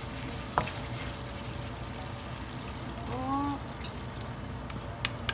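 Coconut cream being poured into a stainless steel pan of simmering pork, over a steady low simmer. There is a sharp tap about half a second in, a brief rising tone about three seconds in, and two sharp clinks near the end.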